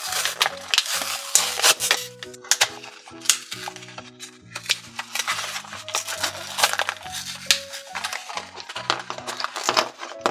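Small plastic stamps clicking and clinking against a metal tin as they are handled, in many sharp irregular clicks, over light background music.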